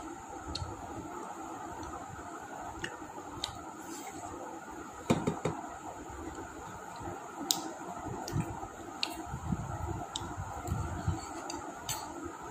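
Quiet eating sounds: a few light clinks of dishes and cutlery, with a louder knock about five seconds in, over a steady background hum.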